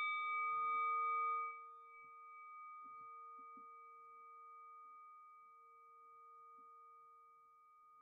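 Singing bowl ringing on after a mallet strike, several steady overtones fading slowly. The level drops sharply about a second and a half in, and the bowl then rings on quietly with a slow waver in loudness.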